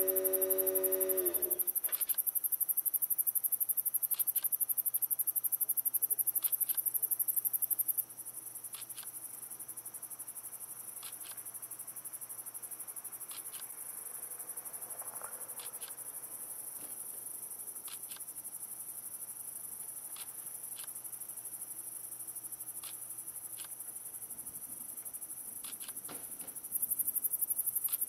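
Background music fades out in the first second or two, leaving crickets chirping in a dense, high, steady trill with a few faint ticks. The trill drops in level about eight seconds in and comes back up near the end.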